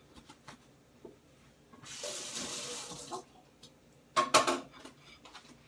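A water tap running for about a second and a half, then shut off. A short clatter follows about a second later.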